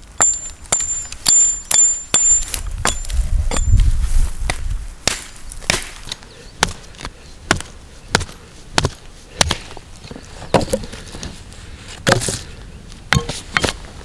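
Hatchet chopping dead branches: a steady run of sharp chops, about two a second at first and slower later, the first several strikes carrying a thin high metallic ring.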